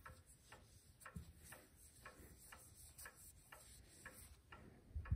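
Faint steady ticking of a mechanical clock, about two ticks a second, with two dull low thumps: a soft one about a second in and a louder one near the end.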